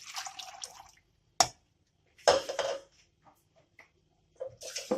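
A liquid is poured, and the stream tails off about a second in. Then comes a sharp knock, a louder clatter of kitchenware a second later, and another knock near the end.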